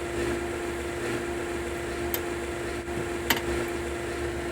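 Steady low machine hum with an even tone, and two small sharp clicks about two and three seconds in.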